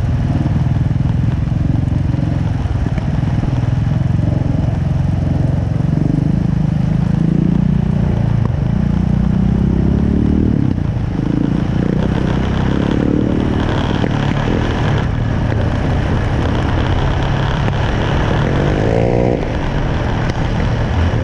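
Yamaha Raptor 700 quad's single-cylinder engine running under way, its note rising and falling with the throttle, with revs climbing again near the end.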